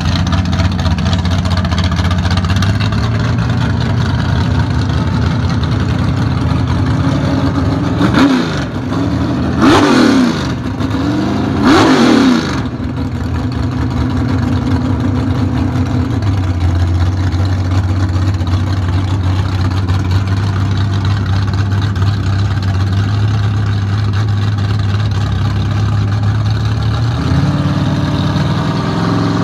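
1968 Camaro's engine idling steadily, blipped three times about two seconds apart near the middle, each rev rising and falling quickly. Near the end the idle steps up slightly.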